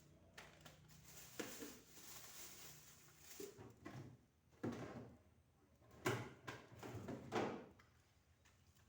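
Refrigerator drawers and fittings being handled: a handful of separate knocks and clunks, the loudest about six and seven and a half seconds in.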